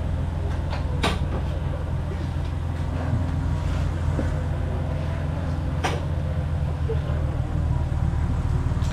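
BMW 325 Cup race car's engine running steadily at low revs, with no revving. Two sharp clicks come through, about a second in and again about six seconds in.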